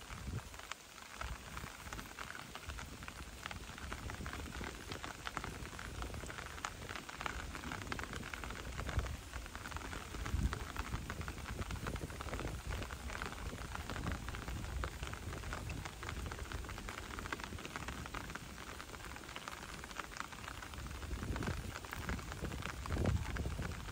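Light rain pattering on pond water and waterside leaves as a steady dense patter of fine drops.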